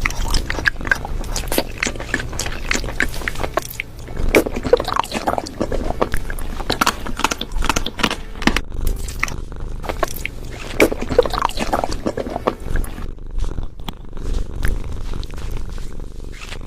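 A cat chewing and crunching food close to the microphone: a dense, irregular run of short crunches.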